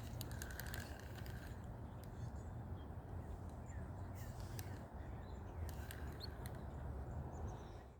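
Quiet outdoor lakeside ambience: a steady low rumble with a few faint, short bird chirps and scattered light clicks.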